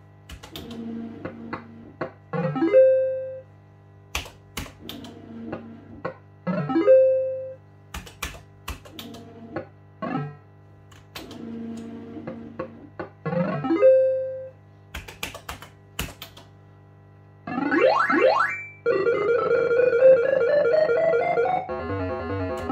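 JPM Hot Pot Deluxe fruit machine sound effects over several spins: electronic spin jingles and beeps punctuated by sharp clicks of the reels stopping. Near the end comes a quick rising run of tones and then a steady electronic win tune as a win is added to the money bank.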